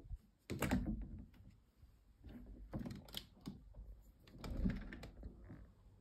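A window being opened by hand: a few separate clicks and knocks from the latch and frame, the loudest about half a second in and again about four and a half seconds in.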